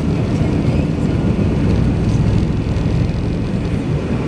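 Cabin noise of a McDonnell Douglas MD-88 on its takeoff roll: a steady, loud low rumble from its tail-mounted Pratt & Whitney JT8D turbofans and the wheels running on the runway.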